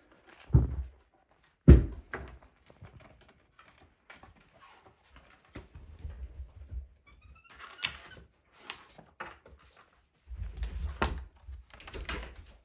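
Capuchin monkeys handling picture books on a carpet: a series of knocks and thumps, two loud ones in the first two seconds, then paper rustling as a monkey lifts and turns the large stiff pages near the end.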